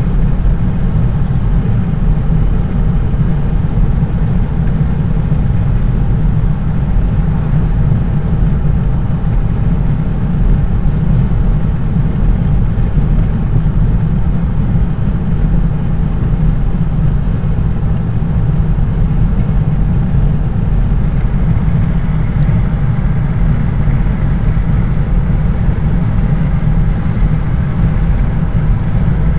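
Steady road noise of a car cruising at highway speed, heard inside the car: an even drone of tyres and engine, heaviest in the low end.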